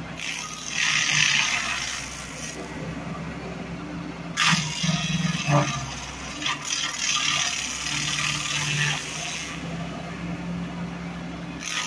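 Hydraulic stump grinder's cutter wheel chewing into a wood stump in two long grating bouts, with a few sharp knocks. Under it the compact loader's engine runs steadily at about three-quarter throttle, driving the grinder's hydraulic motor.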